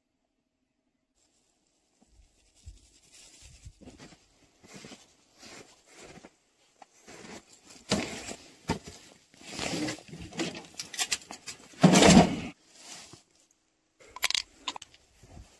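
Plastic sheeting and tarps rustling and crackling, with crunching, as a pile of junk is pulled about and searched. It starts about two seconds in, comes in irregular handling noises, and is loudest near the end.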